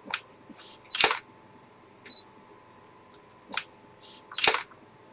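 Sharp mechanical clicks, each followed about a second later by a louder short hissing snap, twice: once near the start and again about three and a half seconds in.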